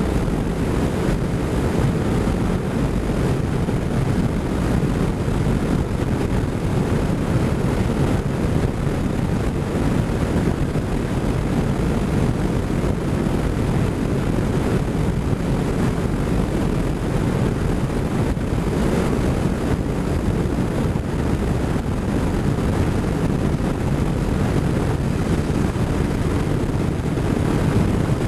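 Motorcycle riding at a steady road speed: a constant loud rush of wind over the bike-mounted camera's microphone, with the engine and tyre noise mixed into it.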